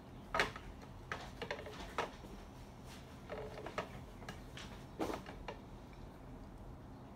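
Irregular light clicks, knocks and clatter of small objects being handled and moved about on a table while someone rummages for something.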